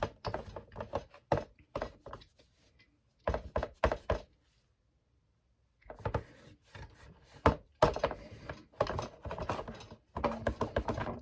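Quick, irregular clinks, taps and knocks of metal parts being handled, from a motorcycle's rear drum-brake shoes and hardware being worked on at a workbench, with a silent pause of about a second and a half just after the middle.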